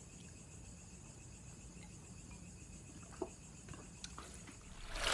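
Faint steady high-pitched trilling of night insects over a low hum, with a small soft knock about three seconds in and a swell of sound right at the end.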